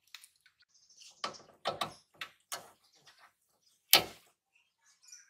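A few light plastic clicks and knocks as small parts are handled, then one sharp, loud click about four seconds in as the rear camera's plastic wiring connector snaps home in the trunk-lid harness.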